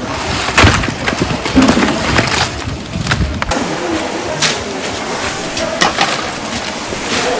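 Deep-frying at a street stall: battered pieces bubbling in a pot of hot oil, with scattered clinks and knocks of a metal wire strainer and bowls as fried pieces are lifted out and tipped into a basket.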